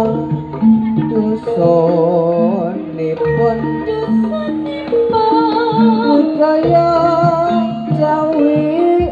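Live Javanese jaranan accompaniment: a singer holding long wavering notes over a melody that moves in short, steady stepped notes.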